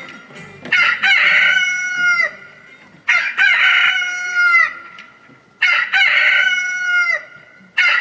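Rooster crowing four times at even intervals of about two and a half seconds, each crow long and loud and dropping in pitch at its end.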